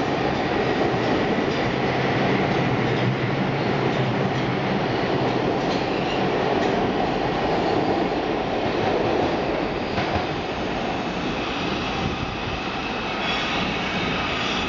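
Bombardier R142 subway train accelerating out of the station: steady rumble and clatter of wheels on the rails, easing off after about ten seconds as it pulls away. Near the end, steady high tones come from a second train on the opposite track.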